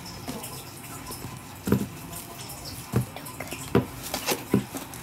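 A metal fork stirring ground beef and breadcrumbs in a plastic mixing bowl, with a handful of irregular clicks and knocks as the fork strikes the bowl.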